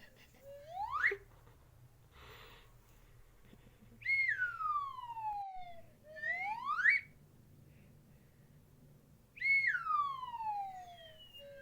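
A whistle tone slides slowly down in pitch, then sweeps quickly back up, a cartoon-style slide-whistle effect. It repeats about every five and a half seconds.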